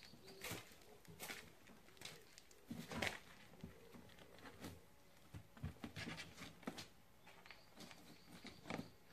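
Faint, irregular clicks and taps, with a few brief high chirps late on.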